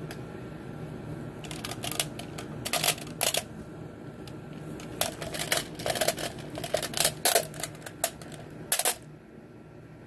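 Glass marbles clicking and rattling against each other and a metal tin as a cockatoo rummages through them with its beak. An irregular run of sharp clicks in clusters starts about a second and a half in and stops shortly before the end, over a faint steady hum.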